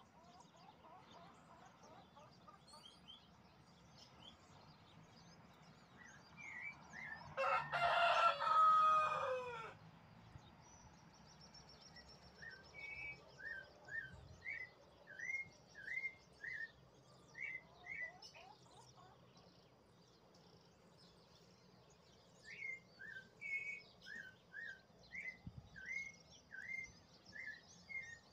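A rooster crows once, loudly, about seven seconds in, the call falling in pitch at its end. Small birds chirp faintly throughout, and one songbird sings two runs of short, quick repeated notes, about two a second.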